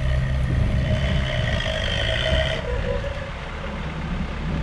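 Engine of a 4x4 off-road vehicle running steadily under way, with a higher whine over it that stops about two and a half seconds in.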